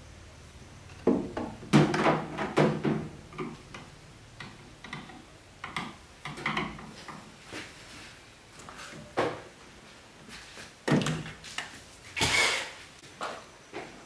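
Irregular knocks, clicks and scrapes of objects being handled, loudest in a cluster about a second in and again near the end.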